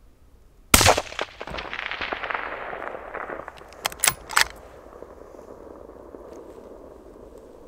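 A single rifle shot from a Browning X-Bolt in 6.5 Creedmoor, followed by a rolling echo that fades over about three seconds. About three seconds after the shot come three sharp metallic clicks as the bolt is worked to chamber another round.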